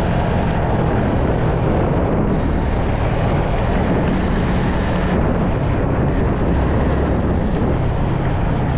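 Yamaha MT-15's single-cylinder engine running steadily while under way, mixed with wind noise on the microphone.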